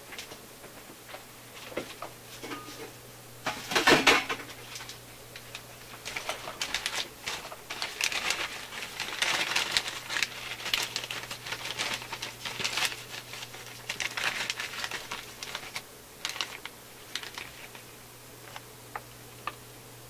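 Close-up handling noise of a plastic-jacketed power cord being worked into a strain-relief knot against the radio chassis: a run of small clicks, taps, scrapes and rustles, with the loudest rustle about four seconds in. A faint steady low hum runs underneath.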